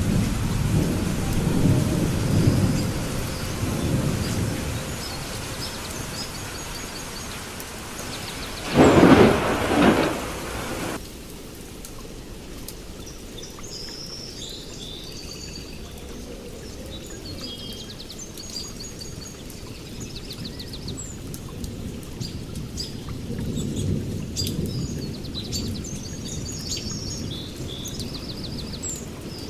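Thunderstorm with steady rain and low rolling thunder, then a loud crack of thunder about nine seconds in. Shortly after, it changes abruptly to quieter rain with birds chirping and another low rumble of thunder later on.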